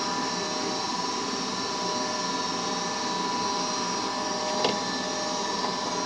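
Goodman gas furnace's motor running with a steady hum and an even whine. A light click comes about two-thirds of the way through.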